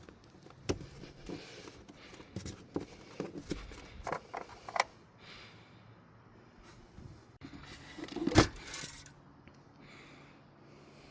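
Metal clinks, taps and knocks of tools or parts being handled and set down, several in quick succession in the first five seconds, then a louder knock about eight seconds in.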